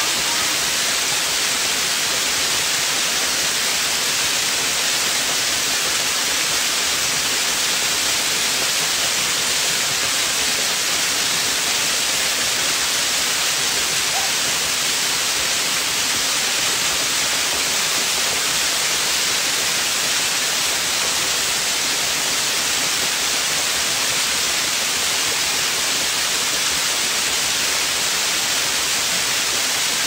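Waterfall pouring down a rock face into a pool: a steady, even rush of falling water that does not change.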